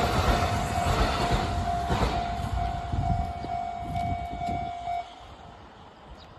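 Kintetsu limited express train passing over a level crossing and fading away, while the crossing's warning bell rings with a steady tone. The bell stops about five seconds in and the sound drops sharply.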